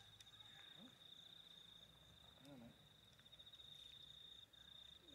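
Faint, steady insect trill: one high-pitched, finely pulsing tone that runs on without a break.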